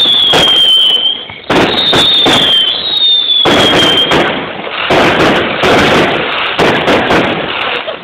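Garden fireworks going off: loud repeated bangs and crackling bursts, with three high whistles that each fall slightly in pitch over about a second in the first half.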